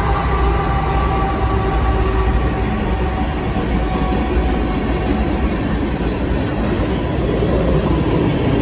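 Freight train passing: diesel-electric locomotives rumbling and steel wheels running on the rail, a steady loud noise with no break.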